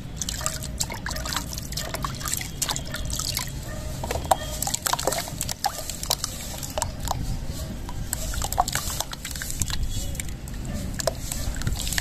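Sand-and-cement chunks crumbling by hand into a plastic basin of water, with many small plops, splashes and drips, one after another.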